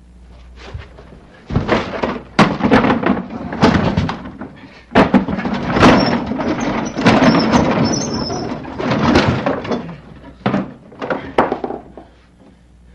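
Repeated heavy wooden thuds and knocks as a wooden chest is hauled and set down on wooden floorboards, in irregular clusters.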